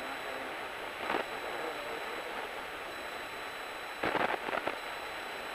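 Steady cockpit drone of a Cessna 172 in flight, engine and propeller noise, with a brief louder burst about a second in and a cluster of short bursts about four seconds in.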